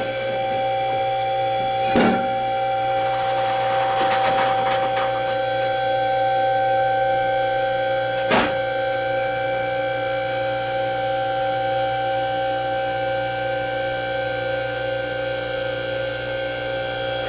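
Car lift's electric hydraulic pump motor running with a steady whine over a low hum as it raises a car, with a sharp clack about two seconds in and another about eight seconds in.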